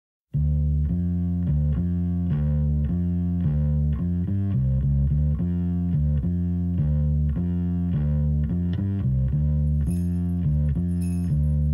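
A rock song starts abruptly with a repeating bass-guitar riff of heavy low notes. High ticking percussion joins about ten seconds in.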